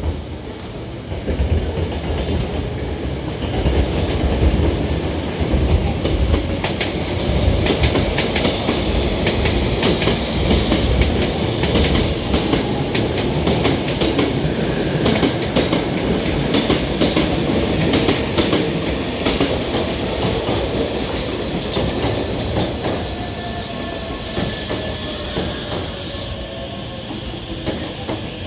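Hankyu 9000-series electric train pulling out of a station: motors and rumble build up, with wheels clicking rapidly over rail joints through the middle. It eases off later, with a few gliding tones near the end.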